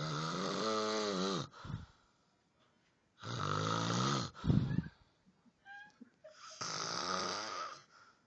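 A man snoring loudly: three long snores about three seconds apart, each lasting over a second.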